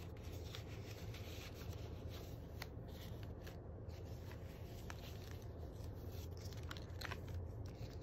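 Paper rustling and soft clicks as journal pages and a paper tag are handled and a page is turned, over a steady low background hum.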